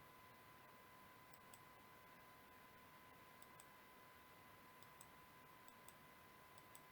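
Near silence with several faint, sharp computer mouse clicks scattered through, over a faint steady high tone.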